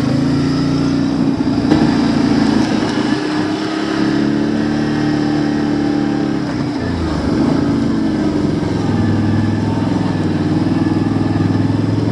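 Fully automatic ATV's engine running as it is ridden along a dirt trail, its pitch rising and falling with the throttle and dipping about seven seconds in.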